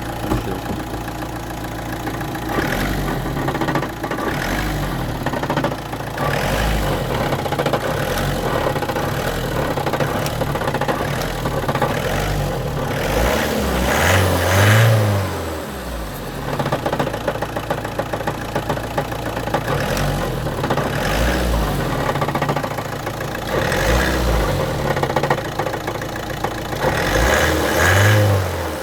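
Car engine running at idle and revved up twice, with a knocking from the dual-mass flywheel, which the owner takes to be a worn flywheel damper.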